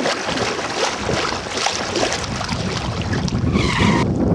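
Small lake waves lapping and splashing, with wind buffeting the microphone in a low rumble that grows stronger after about a second.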